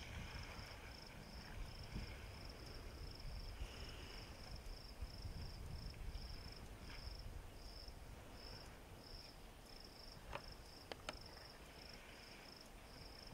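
An insect chirping in a steady high-pitched pulse, about three pulses a second, over a faint low rumble, with a few sharp clicks about ten seconds in.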